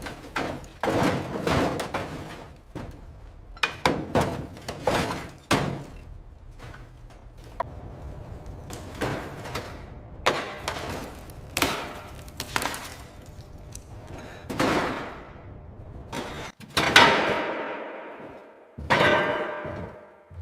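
A long, irregular series of heavy knocks and bangs, some in quick clusters. Many have short fading tails, and the two loudest come near the end with longer ringing.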